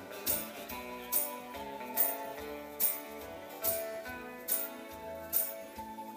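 Live band playing an instrumental passage of a slow country-folk song: strummed acoustic guitar and a sustained electric guitar melody, with a sharp percussion hit a little more often than once a second.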